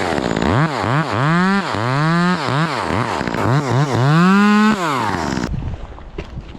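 Chainsaw engine revved in quick bursts, its pitch rising and falling two or three times a second, then one longer high rev before it winds down and stops about five and a half seconds in.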